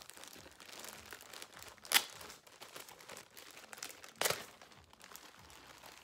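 Plastic packaging of a cross-stitch thread kit crinkling as it is handled, with two sharper crackles, one about two seconds in and one just after four seconds.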